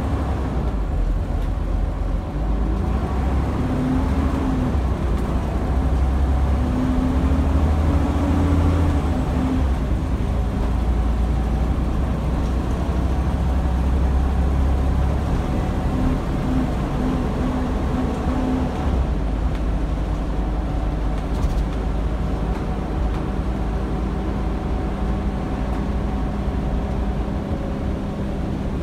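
Scania N94UD double-decker bus underway, heard from the upper deck: its rear-mounted Scania DC9 five-cylinder diesel engine and road noise make a steady low rumble. The rumble is heavier in the first half and eases off a little about two-thirds of the way through.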